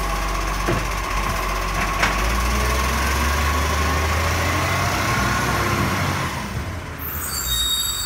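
Bucher side-loading garbage truck: the hydraulic lift arm whines steadily as it finishes emptying a wheelie bin and sets it back down, with a click about two seconds in. The diesel engine then revs as the truck pulls away, and its sound fades near the end.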